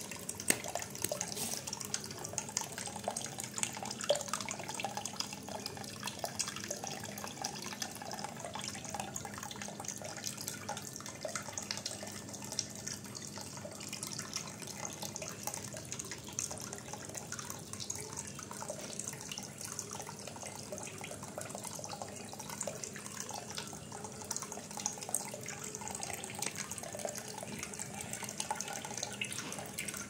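Water from a homemade cement tabletop waterfall fountain trickling and splashing steadily down its leaf-shaped tiers into the basin, with many small drips.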